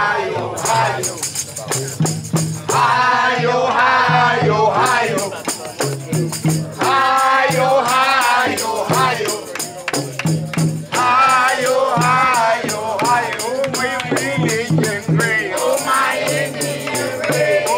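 A Mardi Gras Indian street chant: voices singing and chanting a song over a steady hand-drum rhythm, with tambourines and shakers rattling.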